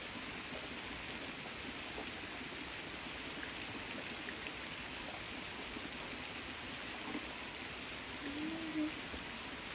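Steady rain falling on the leaves of persimmon trees, an even hiss. A brief faint wavering low sound comes near the end.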